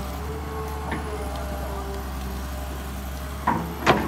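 Kobelco SK200 hydraulic excavator's diesel engine running steadily under load. Near the end come a few sharp knocks as the bucket digs at a tree stump.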